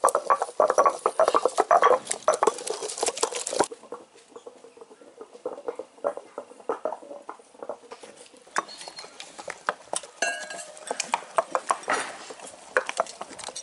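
Hand-held granite grinding stone crushing and grinding ripe jackfruit pieces on a stone slab: a dense run of wet clicks and knocks that stops abruptly about four seconds in. After that, scattered light clicks and rustles.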